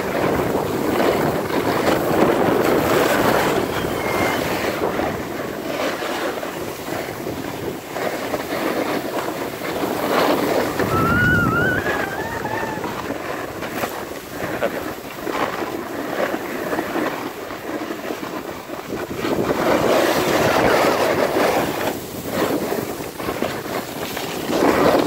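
Snowboards scraping and carving over packed snow, with wind rushing over the microphone; the scrape swells and eases as the riders turn. A brief high warbling tone sounds about eleven seconds in.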